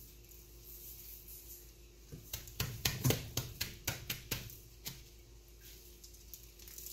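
Gloved hand patting dry rub into a raw pork butt: a quick run of about a dozen soft slaps starting about two seconds in, then it goes quiet again.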